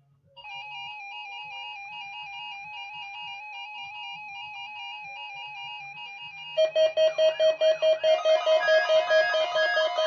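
Weather alert radios sounding their electronic alert tones as a NOAA weather radio test is received. It starts as a steady warbling tone that flips between two close pitches, and about two-thirds of the way in a louder beep joins, pulsing about three to four times a second.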